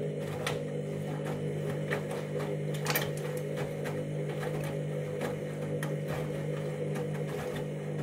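Candy washing machine running mid-cycle: a steady mechanical hum with a few faint light clicks.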